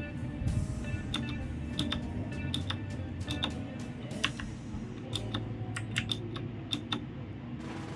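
Single keys pressed one at a time on a Rexus Heroic Series RX-KX3 mechanical keyboard, whose switches are clicky. The clicks come at an uneven pace of about one or two a second, often as quick pairs.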